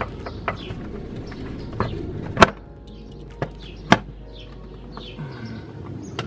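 Scattered sharp knocks and clicks of hands working the engine splash cover inside a Daewoo Matiz's wheel arch, the loudest knock about two and a half seconds in and another a second and a half later. Small birds chirp throughout.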